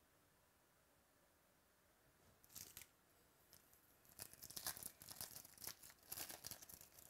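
A foil trading-card pack wrapper crinkling, then torn open and peeled back from about four seconds in, a dense run of crackling tears.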